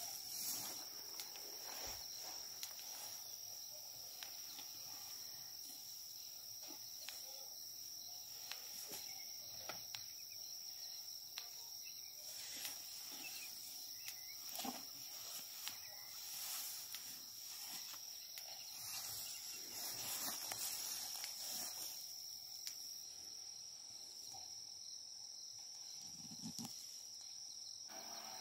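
A steady high-pitched chorus of crickets, with scattered soft knocks and rustles from a young elephant tossing a plastic water pipe about in dry grass.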